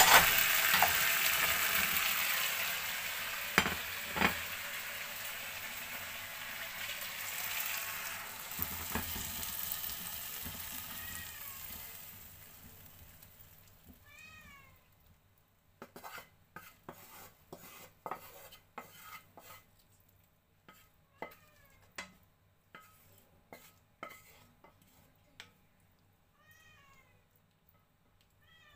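Diced potatoes and minced beef sizzling in a frying pan, the sizzle fading over the first dozen seconds, with a few knocks of a wooden spatula. Then a run of sharp scrapes and clicks as the spatula pushes the food out of the pan onto a plate, with several short high-pitched animal calls among them.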